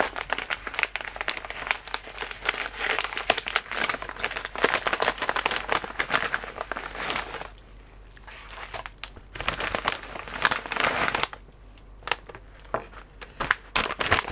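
Packaging crinkling and rustling as a padded mailing bag and a bubble-wrap pouch are opened and handled. The crinkling is dense for the first seven seconds or so, breaks off, comes back in a short burst about ten seconds in, then thins to a few scattered crackles near the end.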